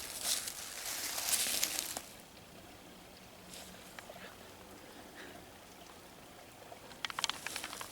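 Footsteps and rustling through the undergrowth for about two seconds, then a quieter stretch with a few faint crackles, then another short burst of rustling near the end.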